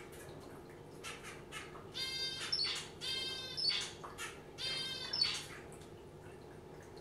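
Zebra finch giving three calls, each about half a second long and about a second apart, with short splashes of water from its bath before and between them.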